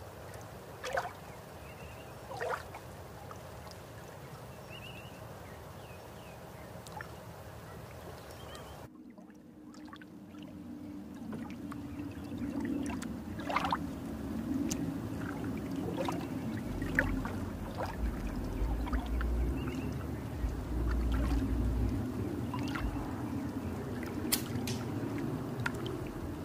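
Light plastic clicks and taps from handling model-kit parts and a plastic sprue with side cutters, over steady background noise. About nine seconds in the sound cuts, and a louder low rumbling noise with scattered clicks takes over.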